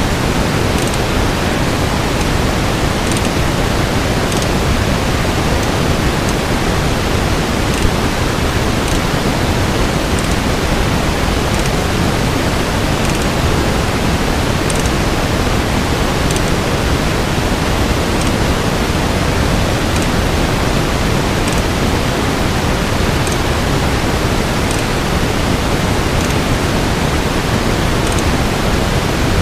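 Steady hiss of even background noise, with faint short high ticks every second or two.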